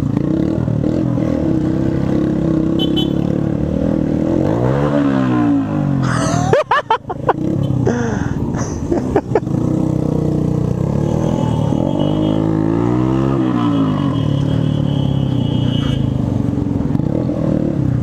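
Motorcycle engine running through its loud exhaust, heard from the rider's seat in slow traffic. The engine note rises and falls twice, about four seconds in and again near thirteen seconds, with a brief clattery dip around seven seconds.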